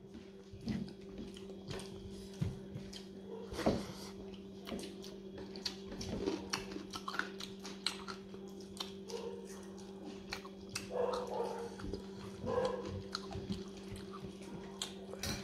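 Close-up chewing and mouth noises of a man eating rice with his fingers: many small clicks and smacks, over a steady low hum.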